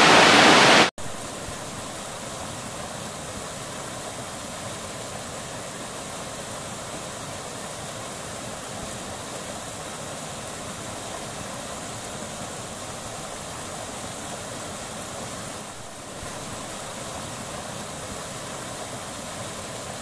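A waterfall's steady rushing roar, cut off abruptly about a second in. A quieter, even rushing noise follows and holds steady for the rest.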